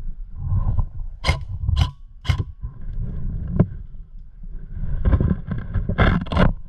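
Rumbling rustle of gear and movement on a worn camera, broken by sharp cracks: three about half a second apart, one more a little later, then a quick cluster near the end.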